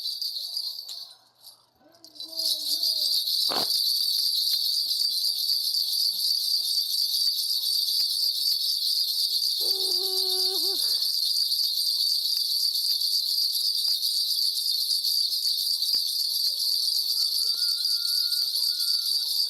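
Shaman's hand bell rattle shaken continuously in a steady high jingle, as in a shamanic divination reading. The jingling stops briefly about a second in and picks up again about two seconds in. A voice murmurs briefly near the middle.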